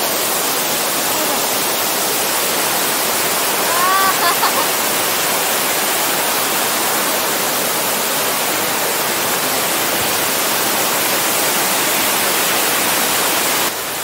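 Mountain stream cascading over rocks: a steady rush of white water. A short call from a voice about four seconds in.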